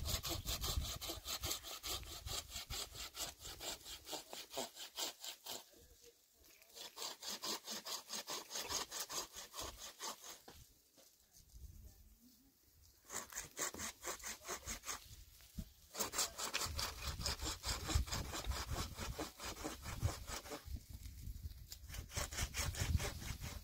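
Hand saw cutting through wood in quick, even back-and-forth strokes, in several bouts with short pauses between them.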